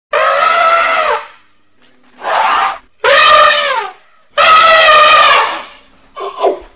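Elephant trumpeting: five loud calls in quick succession, four long ones whose pitch drops at the end and a short one near the end.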